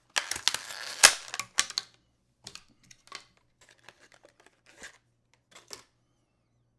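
Product packaging being torn open and handled: about two seconds of dense rustling and sharp snaps, the loudest snap about a second in, followed by a few scattered clicks and taps.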